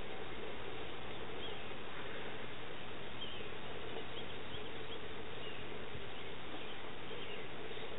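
Faint, short high bird chirps every second or so over steady outdoor background noise and a low, even hum.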